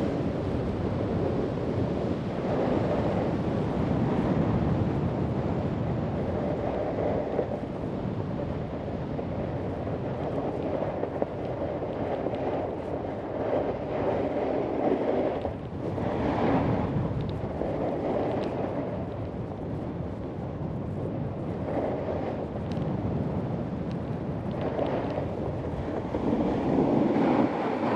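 Wind rushing over the camera microphone while snowboarding downhill, mixed with the board scraping and hissing over the snow. The noise swells and eases every few seconds.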